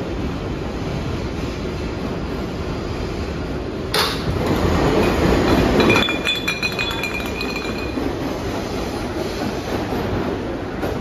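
R142A subway train running along the track with a steady rumble. About four seconds in it turns suddenly louder for a couple of seconds, then rattles with quick clicks and a brief high-pitched squeal before settling back to the steady run.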